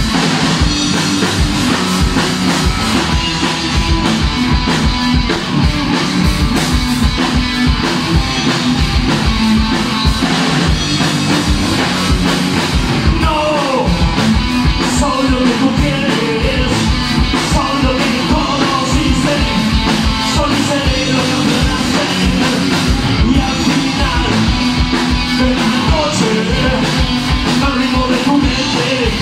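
Live rock band playing loud, with electric guitar, bass guitar and a drum kit driving a fast, steady beat. A bending melodic line comes in about halfway through.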